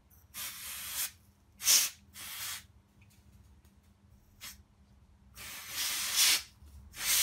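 Can of compressed air held upside down, hissing as it sprays its cold liquid onto a main bearing to freeze it. There are three short sprays in the first three seconds, a brief one about halfway, and a longer spray of about a second near the end.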